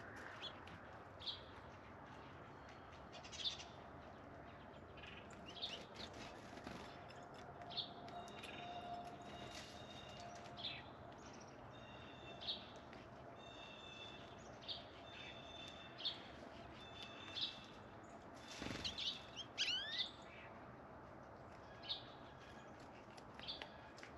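Backyard winter birds calling: scattered short, sharp chips and a run of repeated, clear whistled notes through the middle, with a brief flurry of louder, sweeping calls near the end.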